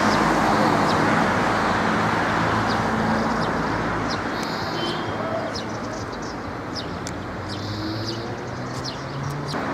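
Road traffic: a passing motor vehicle's engine and tyre noise, loudest at first and slowly fading over several seconds, with short high chirps scattered throughout.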